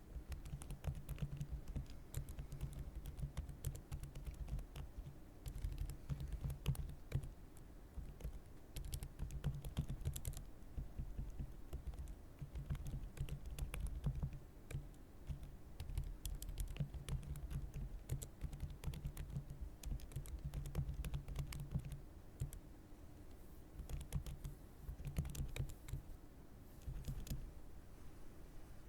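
Typing on a computer keyboard: keys clicking in quick runs, with brief pauses now and then.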